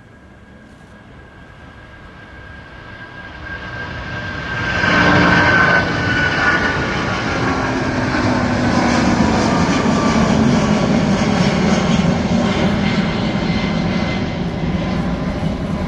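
Boeing 777-300 jet engines at takeoff thrust, growing louder over the first five seconds and then a steady loud roar. A high whine in the engine sound slowly falls in pitch as the aircraft goes past.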